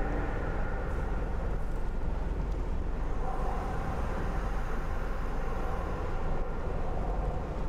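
A steady low mechanical rumble with an even noisy haze above it, and faint held tones that come and go.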